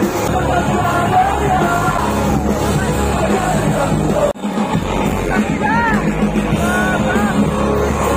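Live rock band playing loudly through a concert PA, with a voice singing over it; the sound breaks off for an instant about four seconds in, then carries on.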